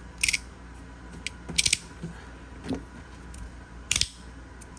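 Sharp clicks and clacks of 3D-printed magnetic fidget sliders being handled: a single snap, a quick run of clicks about a second and a half in, and another snap near the end.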